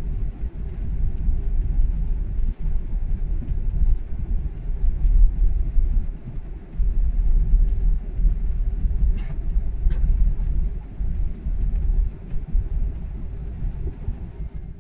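Airliner cabin noise while taxiing after landing: a steady low rumble from the jet engines and the wheels rolling over the taxiway, with a couple of faint clicks about two-thirds in.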